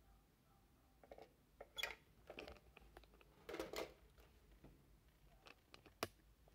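Faint, scattered clicks and rustling handling noises in a quiet room, with one sharp click about six seconds in.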